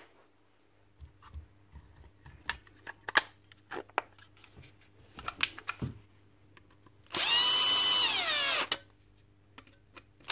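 Cordless drill/driver running the case screws into a DeWalt battery pack: one whine of about a second and a half that drops in pitch as the motor stops, then a second short burst near the end. Before it, light clicks and knocks of the plastic battery case being handled.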